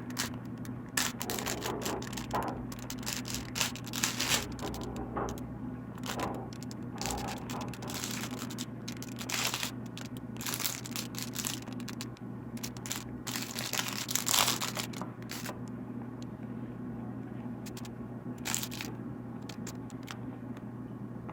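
Packaging being handled and torn open by hand: irregular crinkling, tearing and scraping rustles with scattered clicks, over a steady low hum.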